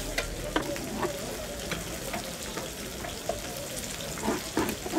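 Meat sizzling in wire grill baskets over a charcoal fire: a steady hiss with frequent short pops and crackles.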